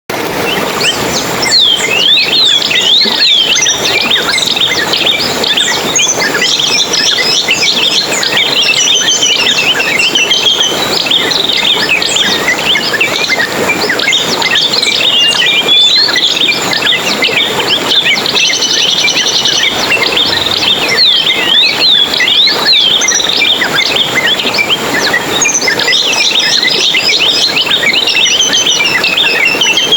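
A dense chorus of many small songbirds chirping and twittering at once, rapid high chirps and trills overlapping without a break, over a steady hiss.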